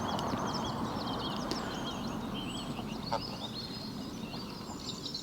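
Birds chirping and calling over a steady outdoor hush, with a single brief knock about three seconds in.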